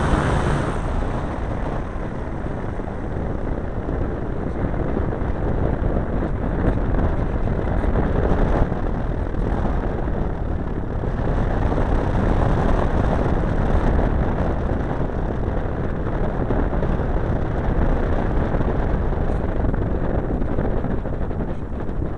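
Steady rush of wind and engine noise picked up by the onboard microphone of a large radio-controlled model airplane in flight.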